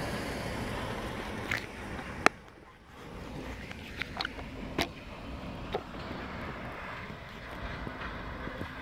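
Steady outdoor rumble of distant road traffic, broken by a few short clicks and knocks from the phone being handled and turned around. The sharpest click comes about two seconds in, after which the background briefly drops.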